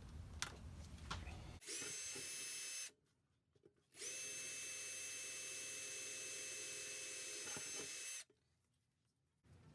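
Power drill boring a hole through a painted metal plate. It runs for about a second, stops, then runs steadily for about four seconds before cutting off. A few light clicks come first.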